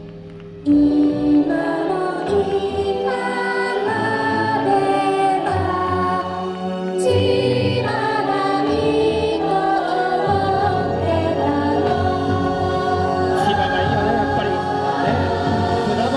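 Yosakoi dance music with singing voices, starting loudly about a second in after a brief lull.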